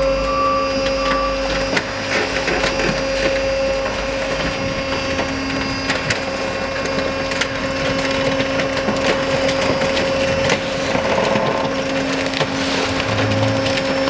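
Car crusher flattening a 1991 Honda Civic Si hatchback: many sharp cracks and snaps as the car's body crumples under the descending lid, over the steady hum of the crusher's hydraulic power unit.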